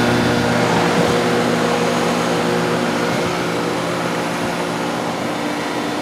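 Payne PH15 heat pump outdoor units running in heat mode: a steady low compressor hum under the even rush of the condenser fans.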